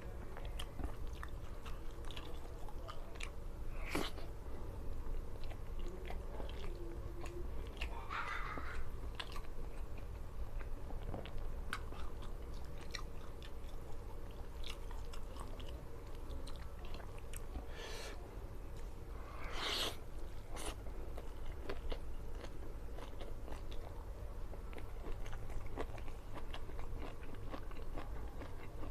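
Close-up chewing and biting of a rice meal with salted fish and raw vegetables, with frequent small crunches and a few louder crunchy bites.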